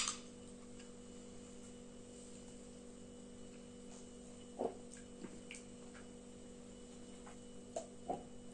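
A person drinking from a can, with a few faint gulps about halfway through and again near the end, over a steady electrical hum.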